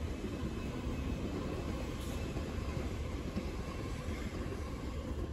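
Electric suburban passenger train running past on the track: a steady rumble of wheels on rails with a faint whine over it.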